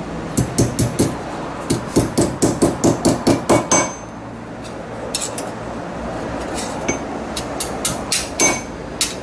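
Hammer tapping a bent metal windshield trim molding on a steel anvil block to straighten it: runs of quick, sharp taps, about five a second, broken by short pauses.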